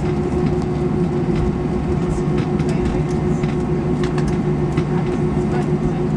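Steady drone of an airliner cabin: a constant low hum with a steady tone over even rushing noise, with a few faint clicks.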